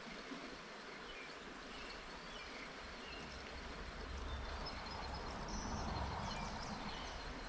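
Creek-side nature ambience: scattered short bird chirps over a steady hiss of flowing water. A low rumble builds in from about three seconds in.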